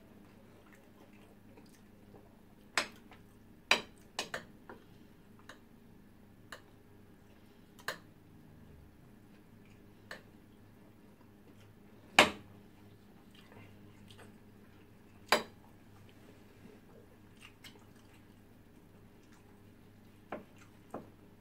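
Metal fork and spoon clinking and tapping against a shared plate of rice and stew: sharp clicks at irregular intervals, the loudest about halfway through, over a faint steady low hum.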